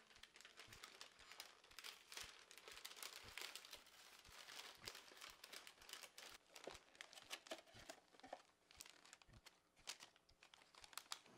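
Faint crinkling and tearing of shiny gold foil gift-wrapping paper as it is torn off a present, the crackles thinning out toward the end.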